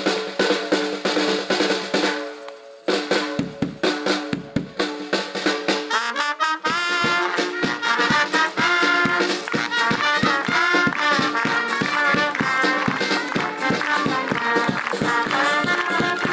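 Live band of brass and drums playing. A held brass chord breaks off about two seconds in, leaving a few seconds of drumming. Then, about six seconds in, a wavering brass melody comes in over a steady drum beat.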